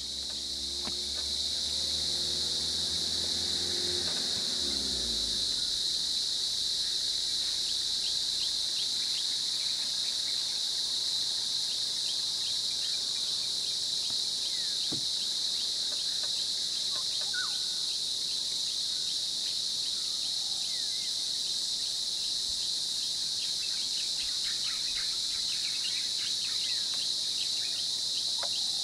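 A steady, high-pitched drone of insects from the forest all through. A vehicle engine runs low underneath for the first few seconds, then falls in pitch and dies away about five seconds in.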